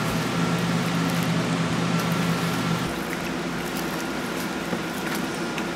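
Steady rushing noise of water and open air on a small video camera's microphone, with a low steady hum under it that cuts off about three seconds in.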